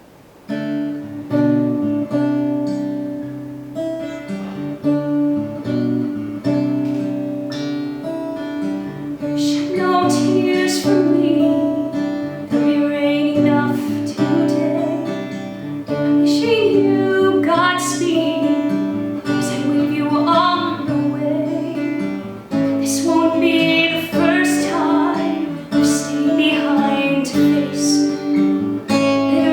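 Acoustic guitar picking an accompaniment. From about ten seconds in, a woman's voice sings over it.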